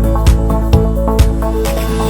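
Background music with a steady beat, about two beats a second, over sustained pitched notes.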